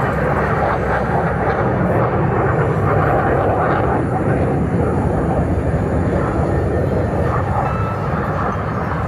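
F/A-18 Super Hornet jet flying low past, its twin jet engines giving a loud, steady rush of noise.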